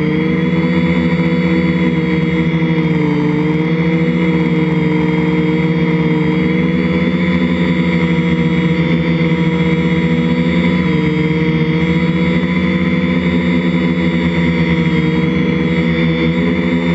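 3DR IRIS quadcopter's electric motors and propellers running, heard from the camera on board: a loud, steady buzzing whine whose pitch wavers slightly up and down as the drone manoeuvres.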